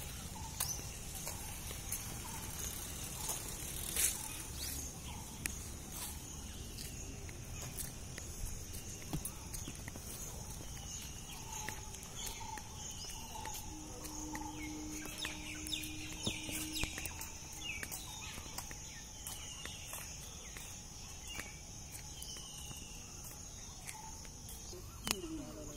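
Outdoor morning ambience of birds calling again and again in short chirps over a steady high-pitched insect drone, with scattered clicks and knocks.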